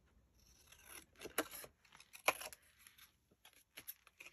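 Scissors snipping through a paper tag: several short, crisp cuts at an irregular pace, with light paper rustle between them.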